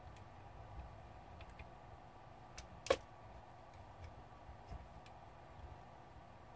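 Faint clicks and taps of a small screwdriver working tiny screws out of a laptop cooling fan, with one sharper click about three seconds in.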